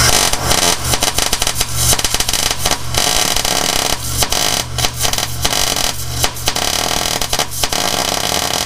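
Wire-feed welder arc crackling steadily, with a few brief breaks, while a nut is welded onto a broken-off bolt in a steel floor pan. The welder hums low underneath.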